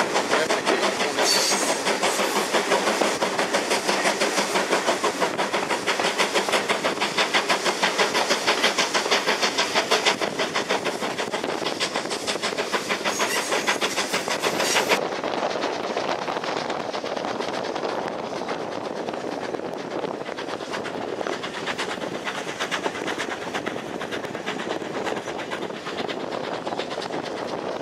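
Steam-hauled train heard from an open carriage window: the engine chuffing and the wheels running on the rails in a steady rhythmic beat. About fifteen seconds in it cuts abruptly to a duller, steady rushing noise without the beat.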